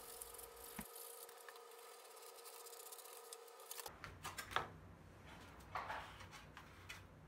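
Faint scraping and soft taps of paper-faced foam board being cut with a utility knife and then folded and pressed by hand, over a faint steady hum that stops suddenly about four seconds in.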